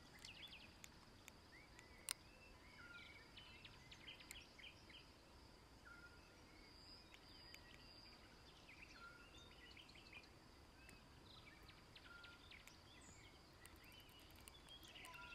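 Near silence: faint outdoor ambience with a steady high-pitched hum and scattered faint short chirps.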